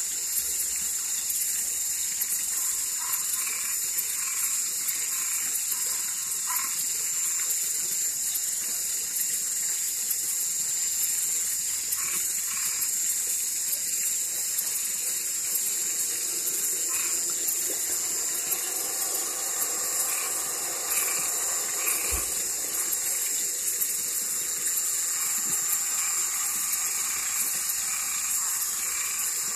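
Night chorus of frogs and tree frogs: a steady high-pitched shrill drone with short croaking calls repeating over it. A denser, lower pitched chorus of calls joins in a little past halfway.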